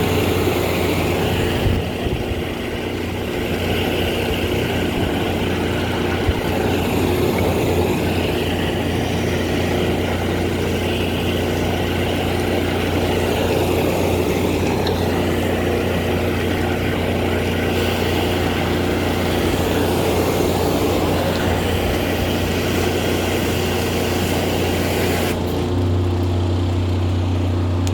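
Engine of a high-pressure drain jetting machine running steadily, with a wavering hiss of the water jet as the pipe is blasted clear of limescale. Near the end the hiss cuts off and the engine note changes.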